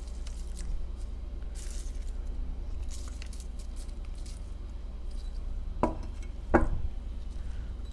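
Quiet handling noise while assembling burgers: faint crinkles and light ticks, then two short knocks about six seconds in, over a steady low hum.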